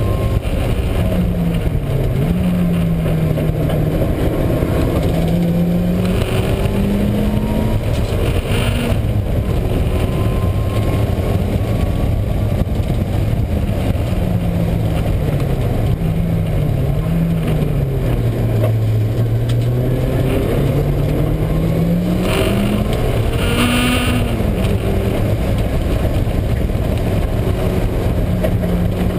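A Mazda Miata being driven hard, its engine note rising and falling several times, lowest about two-thirds of the way through, under constant loud road noise. Through this runs the car's failing wheel bearing, a drone the owner first took for a failing transmission or an exhaust problem and notices mainly on engine braking.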